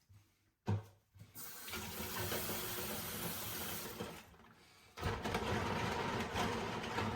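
Water running from a tap into a sink, in two stretches with a short break about four seconds in, after a short knock just under a second in.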